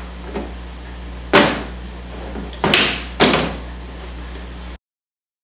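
Hand tools knocked down and picked up on a workbench: two light clicks, then three sharp knocks over a steady low hum, until the sound cuts off abruptly shortly before the end.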